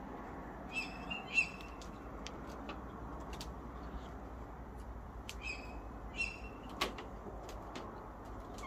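Tawny owls calling: short, harsh, high calls in two clusters, about a second in and again around five to six seconds in. A sharp click comes near seven seconds.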